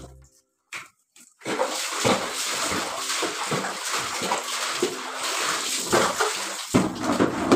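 Laundry being rinsed by hand in a plastic tub of water: wet clothes sloshing, splashing and dripping as they are dunked and lifted again and again, starting after a short silence about a second and a half in.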